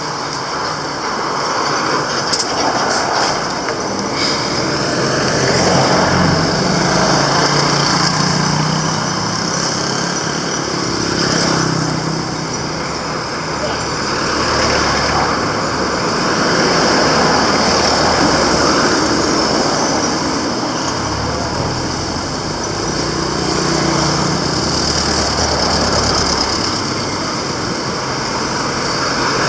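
Roadside street traffic: vehicle engines running close by, swelling and fading as vehicles pass, with voices of people on the street in the background.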